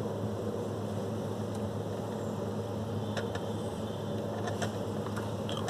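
Steady low hum with hiss and a few faint clicks: room tone.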